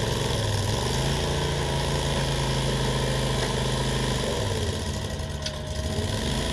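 Toro TRX-16 compact tracked trencher's petrol engine running steadily under load as its digging chain cuts a trench in soil. The engine pitch shifts a couple of times, and the sound drops a little quieter about four and a half seconds in.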